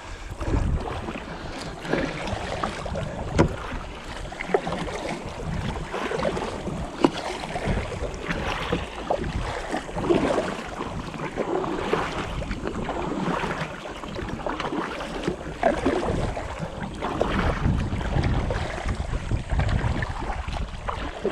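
Kayak paddle strokes dipping and splashing in the water in a steady rhythm, about one stroke every second or so, with wind buffeting the microphone.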